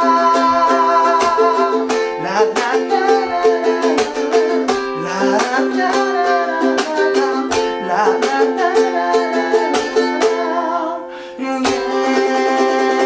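Thin-bodied G-Labo Usulele ukulele strummed in a steady groove, ringing chords mixed with sharp percussive strokes. The playing thins out briefly about eleven seconds in, then comes back in full.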